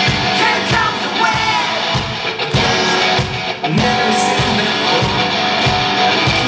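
Live rock band playing with a steady beat: electric guitar to the fore and a male voice singing.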